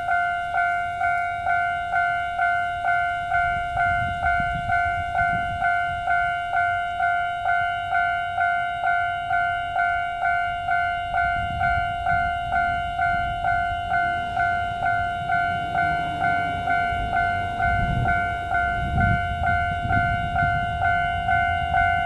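Level-crossing warning bell ringing steadily at about two strikes a second. Under it is the low rumble of a passing train, a DR3000-series diesel multiple unit, which swells from about halfway and is strongest near the end.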